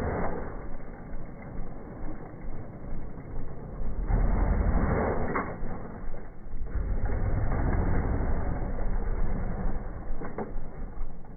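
Dirt bike engine revving in short surges as the bike is ridden over logs, with a few sharp knocks, two of them about halfway through and near the end.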